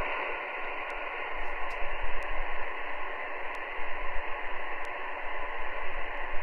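Steady receiver static hiss from the speaker of a Clear Channel AR-3500 10-meter radio just powered up on receive, with no station coming through.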